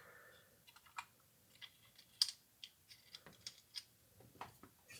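Faint, scattered clicks and taps of plastic printer parts being handled: the damper unit of an Epson 7880 large-format printer, just freed from its cage. The sharpest click comes about two seconds in.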